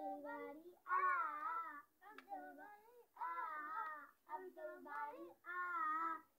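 A child's voice singing a melody in short held phrases with brief pauses between them.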